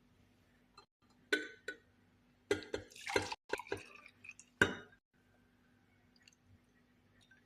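Glassware clinking with liquid dripping: a few separate knocks, several with a short ring, the loudest a little past halfway.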